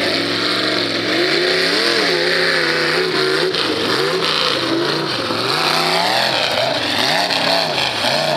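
Lifted mud truck's engine revving, its pitch rising and falling over and over, about once a second, as it powers through a mud pit.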